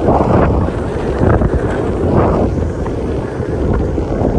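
Wind buffeting the microphone over the rumble of an electric skateboard's hub-motor wheels rolling on asphalt, with a few louder gusts.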